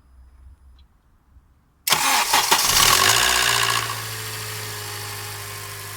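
Honda Accord four-cylinder engine cold-starting about two seconds in with a loud crackle (треск) that lasts about two seconds, then settling into a steady idle. The crackle on a cold start is the sign of a faulty VTC (variable valve timing) cam gear.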